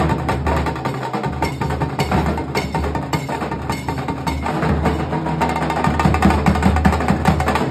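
Nashik dhol ensemble playing: several large barrel drums beaten with sticks in a fast, loud, driving rhythm, with sharp cracking strokes over a deep, booming low end.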